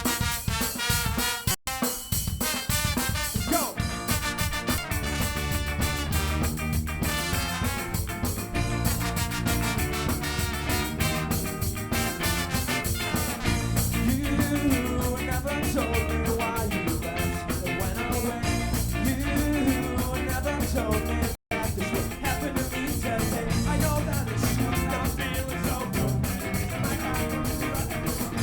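Live ska band music with drum kit, played at full volume. The sound cuts out for an instant twice, about a second and a half in and again about 21 seconds in.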